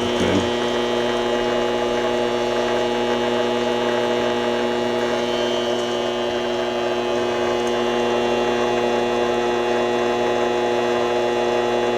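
Vevor 7x14 mini lathe running at a steady speed, its spindle motor and gear train giving a constant whine made of several steady tones over a mechanical whir.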